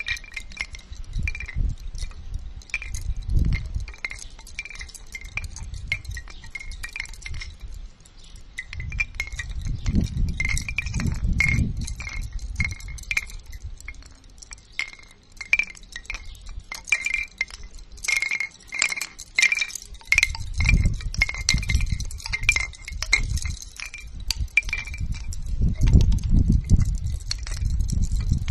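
Bamboo wind chime, its hollow bamboo tubes knocking together irregularly in the wind, with a ringing hollow note between the knocks. Low rumbles of wind on the microphone swell up several times.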